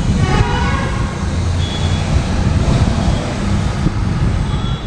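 Boeing 787-8 airliner's jet engines running at taxi power, heard as a loud, steady low rumble.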